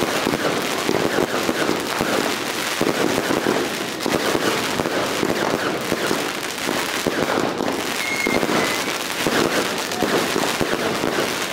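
Consumer fireworks crackling: many crackle stars popping in a dense, continuous rapid crackle, with a short high tone about eight seconds in.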